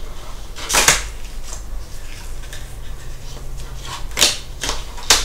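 Clear plastic blister packaging of RAM modules being handled with gloved hands: a plastic crackle about a second in, then a few sharp clicks near the end, over a faint low hum.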